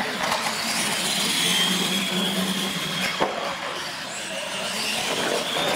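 R/C monster trucks racing on a concrete floor: a high electric-motor whine that drifts slightly in pitch, over tyre and drivetrain noise, with a single sharp knock about three seconds in.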